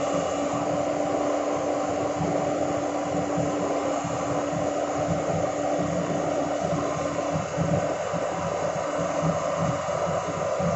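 Excavator's diesel engine running steadily, with a humming tone that drops away about seven and a half seconds in.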